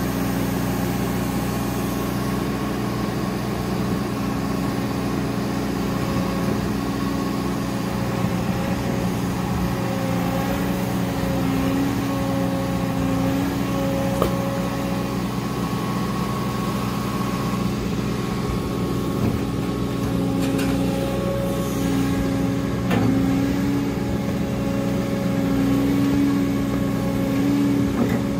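Menzi Muck M535 spider excavator's diesel engine running steadily under hydraulic work as the machine climbs down a wall. Its pitch rises and dips a little as the load changes, with a couple of short sharp knocks.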